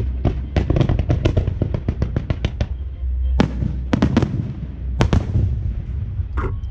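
Fireworks going off. A fast run of sharp cracks, several a second, fills the first two and a half seconds, then a few louder single bangs follow at irregular gaps.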